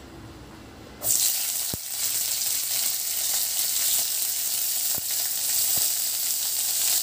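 Chopped carrot, cauliflower, cabbage and green chilli hitting hot oil in a kadhai about a second in, setting off a loud, steady sizzle of frying. A few sharp clicks sound over it.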